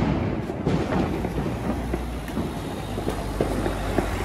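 Car engine running as a car rolls past close by: a steady low rumble, with small scattered crackles over it.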